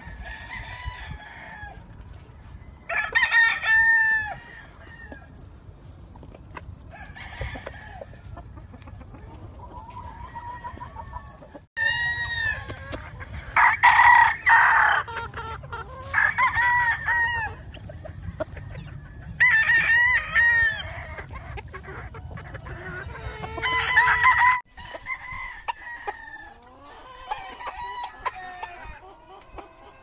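Gamefowl roosters crowing several times in loud spells, with chickens clucking between the crows.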